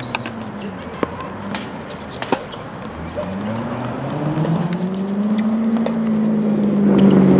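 Motor vehicle engine passing nearby, growing louder and rising slightly in pitch from about three seconds in, loudest near the end. A few sharp knocks come in the first couple of seconds.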